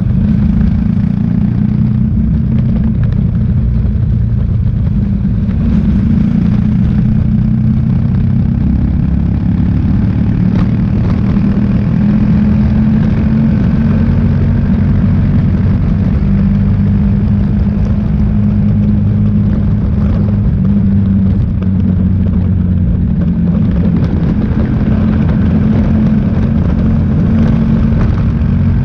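Motorcycle on the move: a steady low rush of wind on the microphone over the engine running, with no break.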